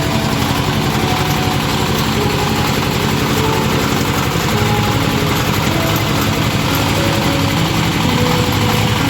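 Water well drilling rig's engine running steadily, with a fast, even low throb.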